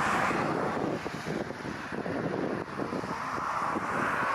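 Airbus A380 jet engines at takeoff thrust as the aircraft rotates and lifts off: a dense, steady roar with a ragged crackle, slightly louder at the start and near the end. Wind buffets the microphone.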